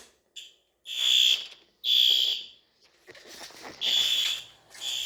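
Fire alarm sounder going off in repeated high-pitched beeps about a second apart, set off by a pull station that has just been pushed in and pulled.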